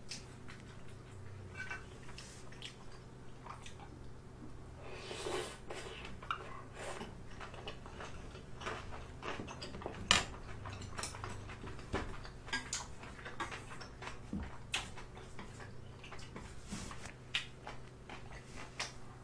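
Utensils clinking and scraping against a yellow aluminium ramen pot and a small metal bowl, with chewing between the clinks; the sharpest clink comes about ten seconds in. A low steady hum runs underneath.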